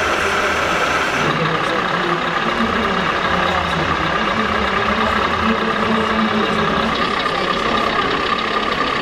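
Large-scale RC model fire trucks running, their electronic diesel-engine sounds idling over the steady din of a busy exhibition hall.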